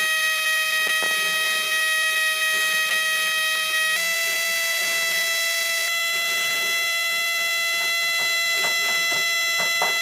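Small hobby DC motor running with a steady high whine. Its pitch steps up slightly twice, and there are a few faint clicks near the end.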